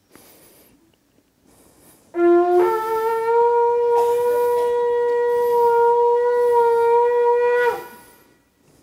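Shofar (ram's horn) blown: a short lower note about two seconds in steps up to one long held note of about five seconds, which then stops.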